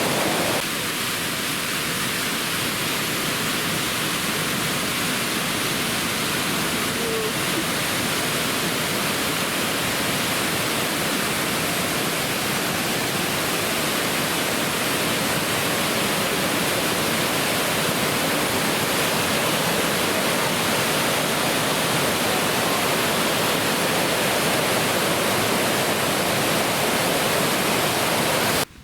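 Waterfall: a steady, loud rush of falling water that cuts off suddenly near the end.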